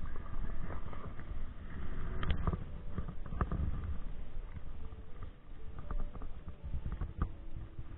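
Handling noise of a clear plastic tackle box being opened and soft plastic lures picked through, with a few sharp plastic clicks over a steady low rumble.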